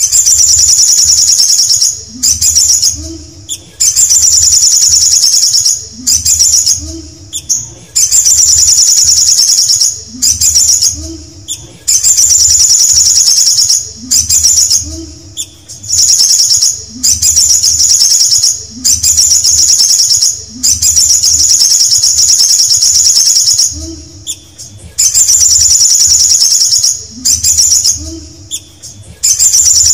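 Male olive-backed sunbird singing a loud, rapid, high-pitched trilling song in phrases of about two seconds, repeated roughly every two seconds with short pauses between them.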